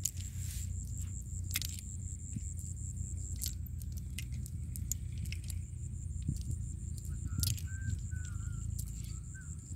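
Lead sinkers along the edge of a cast net clinking and rattling in irregular clicks as the net is handled to free the catch, over a steady low rumble.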